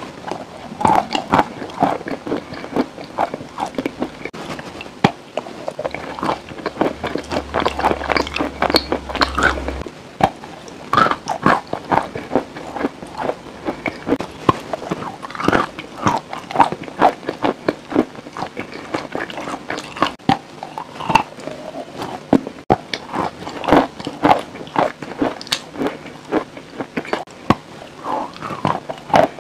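A person biting off and chewing pieces of a brittle white food, a dense run of sharp crunches and crackles, several a second.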